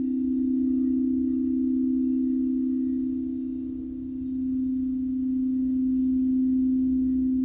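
A singing bowl sustaining a steady low ringing tone with faint higher overtones. The tone fades a little around the middle and then swells back up.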